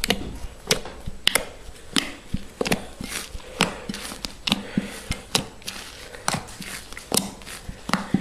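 Homemade shaving-foam slime being squeezed and stretched in the hands, giving irregular sticky clicks and pops.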